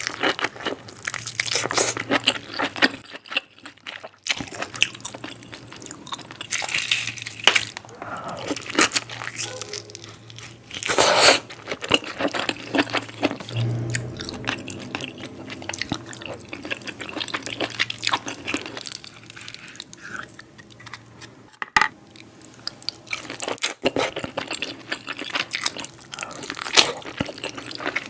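Close-miked eating of king crab: shell cracking and crunching in quick irregular snaps, mixed with chewing.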